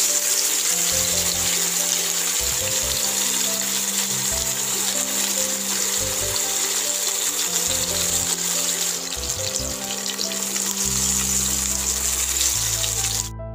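Masala-coated catla fish frying in hot oil in a pan: a loud, steady sizzle that cuts off suddenly near the end. Soft background music plays underneath.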